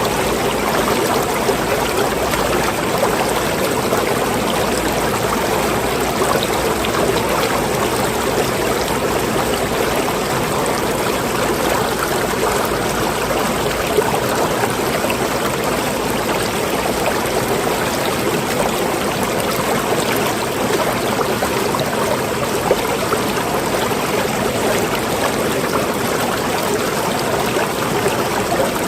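Water running steadily, an even, unbroken rush of flowing water.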